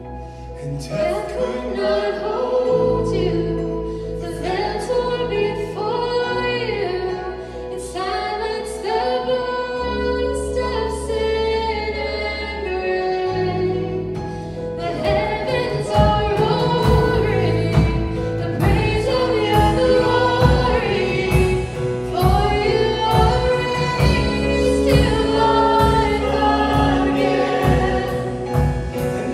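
Worship song: a group of voices singing over long held low notes, with a steady beat coming in about halfway through.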